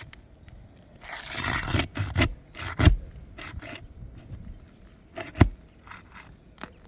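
Roof shingles being pried up and scraped, with a few sharp snaps and knocks. The shingles are brittle and are cracking as they are lifted.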